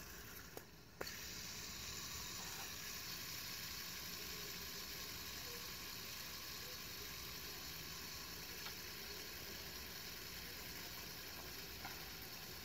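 Handheld fidget spinner whirring steadily on its bearing. About a second in there is a sharp click, after which the whirr is a little louder, with a couple of faint ticks later.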